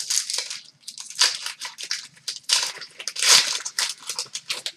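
A hockey card pack's wrapper being torn open and crinkled in the hands: a series of irregular crackling rustles.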